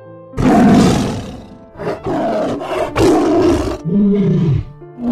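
Tiger roaring and growling in a run of loud, rough calls, one after another, over soft background music.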